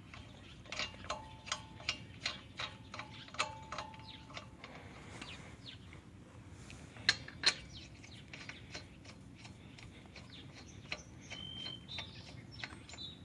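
A ratchet wrench clicking as it runs lug nuts onto a wheel stud, a steady series of faint metallic ticks with a slight ring, about two to three a second. Two sharper clicks follow later, then a few scattered light ticks.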